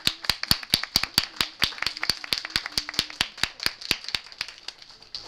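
A small group of people clapping, about four to five claps a second, thickening in the middle and stopping shortly before the end.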